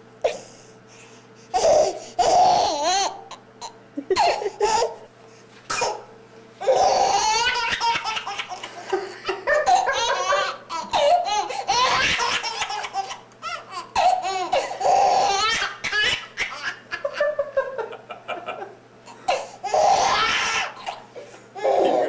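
A baby laughing in repeated fits, breaking off briefly between them; the longest fit runs on for several seconds near the middle.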